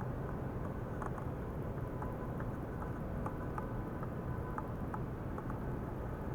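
Ultrasonic cleaning bath running: a steady low hiss from the water with scattered faint ticks and crackles.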